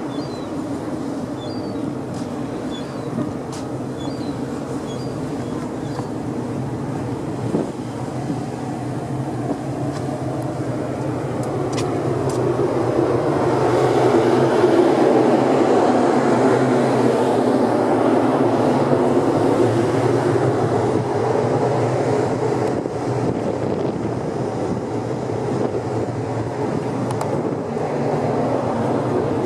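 Steady low drone of the M/V Hyak's machinery on the ferry underway, with a rushing noise over it. The rush swells louder for several seconds in the middle, then eases.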